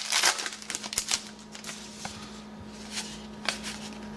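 A trading card pack's wrapper crinkling as it is pulled open and off the stack, then cards slid and flicked one at a time, a few soft clicks spaced about a second apart.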